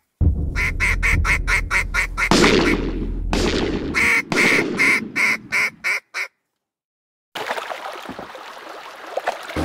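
Duck quacking in a fast run of sharp calls, about four a second, over a low rumble with a whoosh partway through, cutting off about six seconds in. After a second of silence, water splashing as someone wades through a stream.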